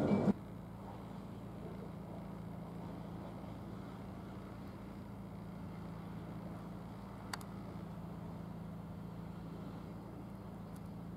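A steady low hum of an idling engine, with a single sharp click about seven seconds in. A louder sound cuts off abruptly at the very start.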